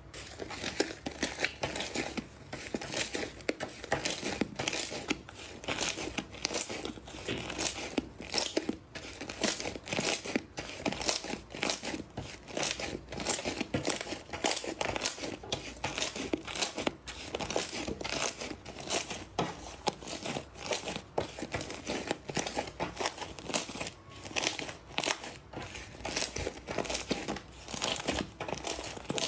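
Slime being squeezed and worked by hand, giving a dense, continuous run of small crackles and pops.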